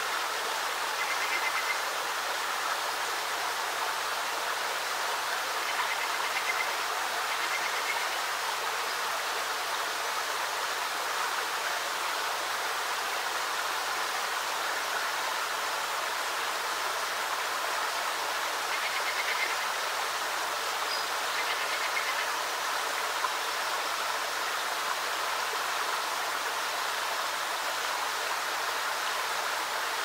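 Creek water trickling steadily through the rocks of a small dam, with a few faint short bird calls now and then.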